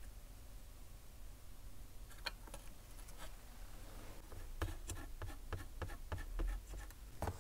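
Light, scattered clicks and taps of small tools and parts being handled at a soldering bench while a surface-mount capacitor is swapped on a logic board. The clicks come closer together from about halfway through, over a low steady hum.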